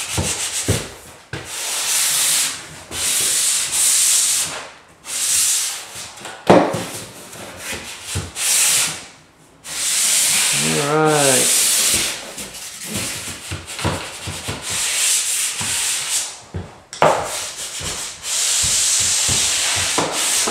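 SMARTSTICK pole-mounted drywall angle sander rubbing sandpaper along a drywall inside corner in a series of strokes, each lasting a second to a few seconds, with short pauses between.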